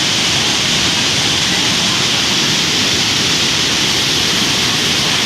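Waterfall rushing steadily: a loud, unbroken wash of falling water.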